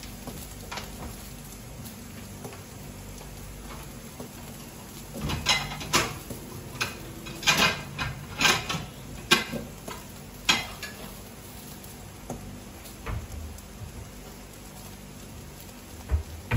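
Seafood marinara simmering in a covered pan under a glass lid: a steady low hiss, with a run of sharp pops and clinks from about five to eleven seconds in.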